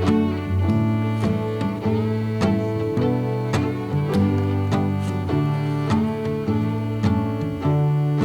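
Instrumental background music: sustained low notes under a melody, with notes struck or plucked at a steady, unhurried pace.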